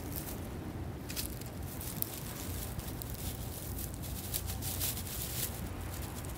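Dry grass rustling and crackling as a raccoon dog forages through it with its nose down, in scattered crisp clicks that are busiest between about four and five and a half seconds in, over a low steady rumble.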